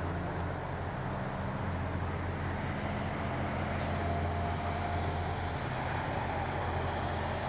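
Faint whine of an E-flite Piper Cherokee RC plane's electric motor and propeller on landing approach, rising slightly in pitch midway, over a low steady hum and wind noise.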